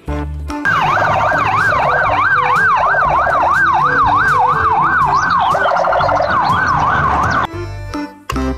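Police car siren on a fast yelp, the pitch sweeping up and down about three times a second, then stopping near the end.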